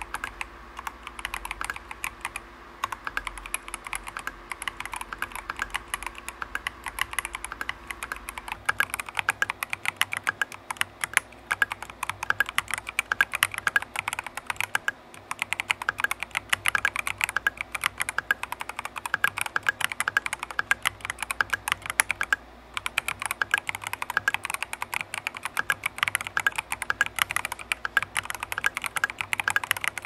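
Typing on a YunZii CoolKiller CK98 mechanical keyboard fitted with Polar Bear Ice Blade switches: a dense, quick run of keystrokes, broken by a brief pause about halfway through and another about three quarters of the way through.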